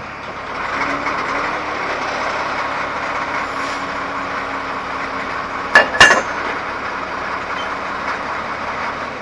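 CAT 14G motor grader's diesel engine running under load, rising about half a second in and holding steady as the grader pulls forward. Two sharp knocks come about six seconds in.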